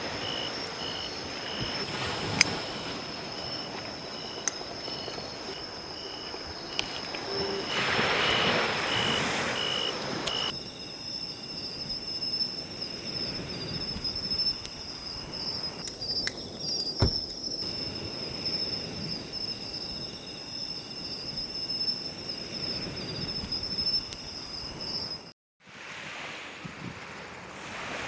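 Crickets and other night insects chirring, with one high steady trill throughout and regular short chirps from another insect in the first ten seconds or so, over a soft wash of surf. There are a few sharp pops, and the sound cuts out briefly near the end.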